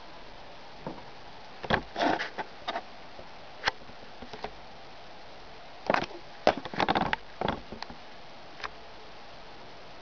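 A compact disc arcing inside a running microwave oven: irregular sharp crackles and snaps over the oven's steady hum, in two clusters, one about two seconds in and a denser one around six to seven seconds.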